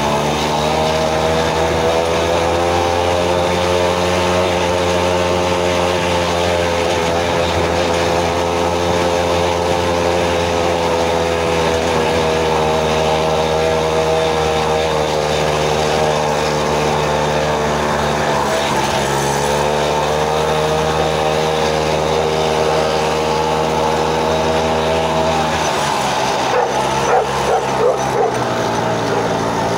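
Two-stroke moped engine of a home-built mobilete tricycle running under way, its pitch mostly steady, dipping briefly about two-thirds of the way through and falling near the end. A few short, sharp louder sounds come just after the drop.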